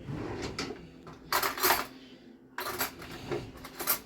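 Metal kitchen utensils clinking and clattering against dishes in a few short bursts, louder about a second in and again from the middle to the end.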